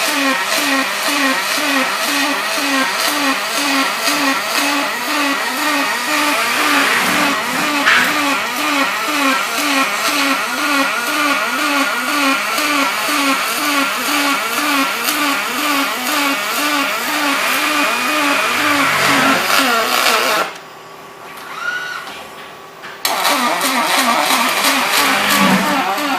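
Robotic MIG welding arc on aluminum from an OTC Daihen Almega AX-V6L welding robot, a harsh buzzing crackle pulsing in a steady rhythm of about three beats a second. The arc stops for about two seconds near the end, then strikes again and carries on.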